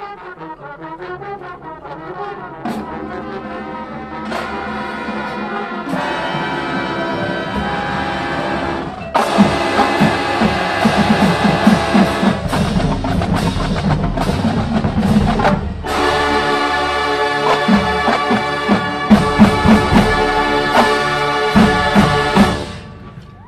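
College marching band of brass and drums playing the close of its show. Parts enter in layers and it grows louder about nine seconds in, breaks off briefly, then plays a loud final passage that cuts off shortly before the end.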